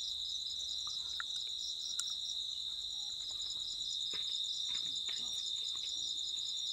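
A steady, high insect trill that pulses evenly. Over it come a few faint clicks from metal engine parts being handled as a round cover is fitted to the engine case.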